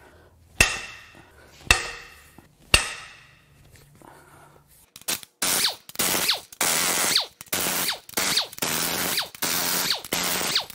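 Three ringing metal clanks about a second apart. From about halfway, a ratchet wrench is worked back and forth in quick, even strokes, a little under two a second, backing out the loosened cylinder-head bolts.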